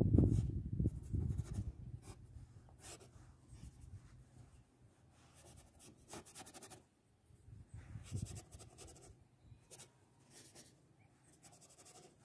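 Paintbrush working oil paint onto a painting panel: a series of short scraping strokes with pauses between them. A low rumble is loudest at the start and fades out over the first two seconds.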